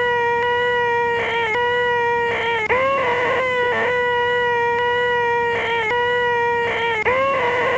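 A man's long, loud, nasal 'eeeeeh' screech, the 'most annoying sound in the world', held on one steady high pitch and looped over and over. It breaks off and restarts with a short upward slide in pitch about three times.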